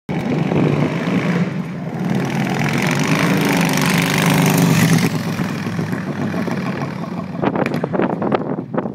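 Harley-Davidson Ironhead V-twin motorcycle engine on a custom chopper, riding up, loudest as it passes close about four seconds in, then pulling away and fading. Wind buffets the microphone near the end.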